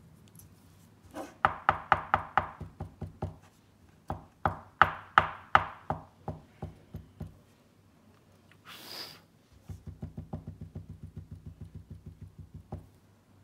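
Pilot Parallel pen's plastic nib section tapped against a cloth-covered tabletop to knock leftover rinse water out of the nib. Two runs of sharp knocks, about five a second, then a brief hiss and a faster, softer run of duller taps.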